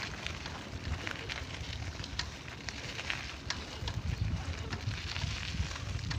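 Footsteps crackling and swishing through grass on a dirt path, an irregular run of small crackles, with wind buffeting the microphone as an uneven low rumble.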